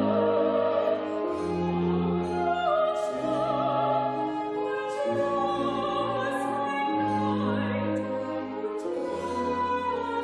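Baroque chamber music: recorder, lute and cello playing together under an operatic singing voice, in a slow, held melody.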